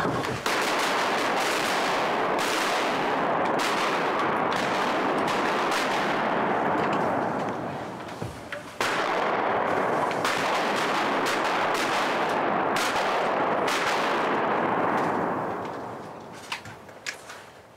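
A large flock of gadwall ducks pouring in on rushing wings. It makes a loud, steady whoosh that dips about eight seconds in, comes back suddenly, and fades out near the end.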